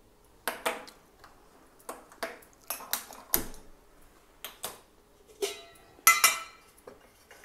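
Metal kitchenware being handled at the stove: a string of sharp knocks and clinks of pan and utensils, several ringing briefly, the loudest a little after six seconds in.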